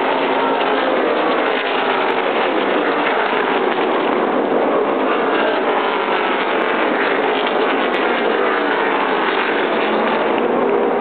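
NASCAR Cup stock cars' V8 engines running at racing speed, loud and steady, with many engine notes sliding in pitch as cars pass.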